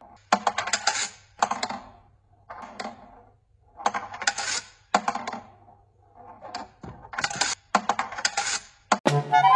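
Steel ball of a kinetic 'perpetual motion' desk toy rattling along its metal wire track, a burst of sharp metallic clicks and ringing about once a second.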